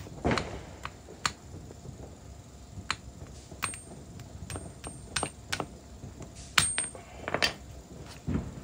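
Irregular sharp metallic clicks and taps, about ten in all and loudest near the end, from steel tools and parts being handled and tapped during drive shaft universal joint reassembly.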